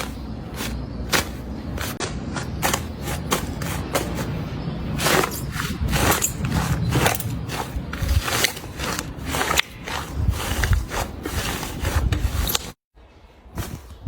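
Slime being squeezed and kneaded by hand, giving a run of wet clicks and pops that come thicker in the middle. The sound cuts out suddenly for a moment near the end.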